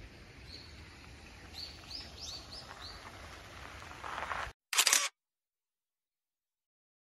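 Small birds chirping a few times over faint outdoor ambience. The ambience then cuts off, and about five seconds in there is one loud, short camera shutter click.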